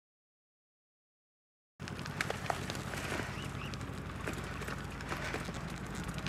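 Silence, then about two seconds in a bicycle rolling along a gravel towpath starts: a steady low rumble with an irregular crackle of small clicks from the tyres on the stones.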